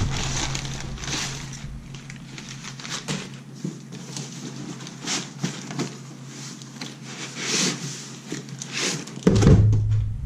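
Cardboard scraping and rustling as a long product box is pulled out of a shipping box, then a heavy thump about nine seconds in as the box is set down on the table.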